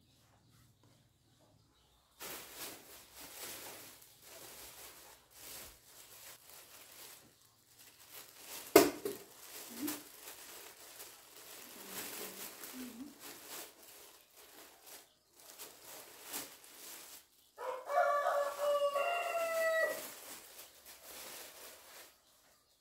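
Plastic bag rustling and crinkling as clothes are pulled out and handled, with a sharp knock about nine seconds in. Near the end, a rooster crows once, loudly.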